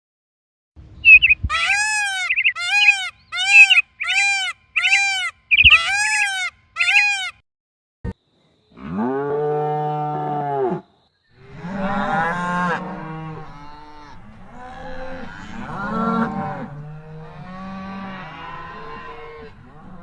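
Cattle mooing: one long low moo about nine seconds in, then several overlapping moos from more than one cow. Before that comes a run of about nine short, high-pitched repeated calls.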